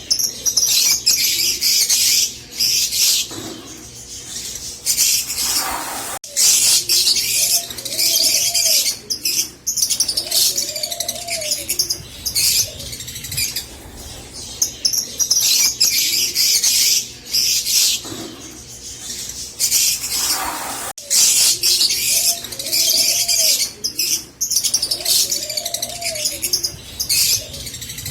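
Green Fischer's lovebirds chirping and chattering in rapid, high-pitched bursts of a second or two each, with short pauses between them.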